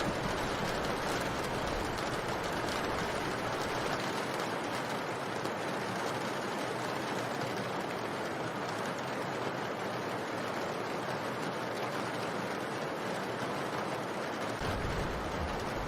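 Steady rain, an even hiss with no separate drops. A low rumble underneath drops away about four seconds in and comes back near the end.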